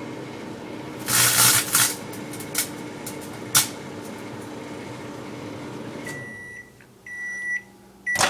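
Microwave oven running with a steady hum while a potato chip bag inside crackles and shrinks in the heat, with loud crackling bursts about a second in and two short ones a little later. The oven shuts off about six seconds in and beeps three times to signal the end of the cook time.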